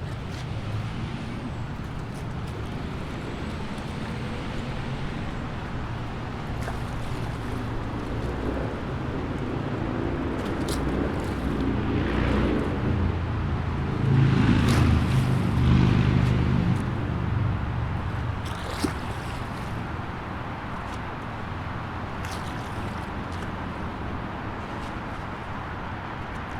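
A motor vehicle's engine running with a low rumble that swells to its loudest about halfway through and then falls away, as when a vehicle draws near and moves off. A few short hisses sound over it.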